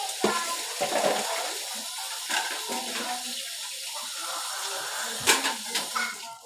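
Water running steadily from a tap into a basin, with a couple of sharp clatters near the end.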